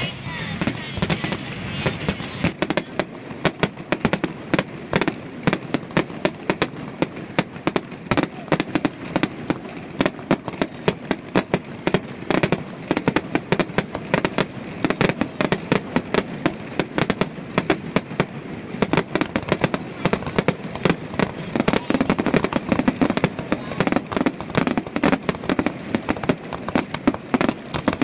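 Fireworks finale: aerial shells bursting in a fast, unbroken barrage of bangs and crackles.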